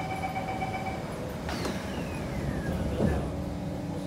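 Kawasaki C151 electric train running, heard from on board over a steady rumble: a high whine falls steadily in pitch from about a second and a half in, and a short thump comes about three seconds in.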